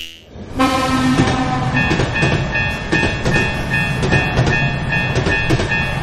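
A train horn blows briefly about half a second in, then a train runs past with a steady rumble and wheel clatter. Over it a level-crossing bell rings a quick repeating ding, about three times a second.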